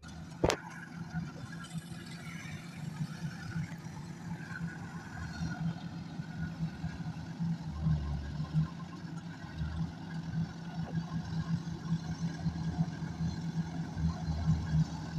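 Combine harvester's diesel engine running steadily with a low, even hum, with a sharp click about half a second in.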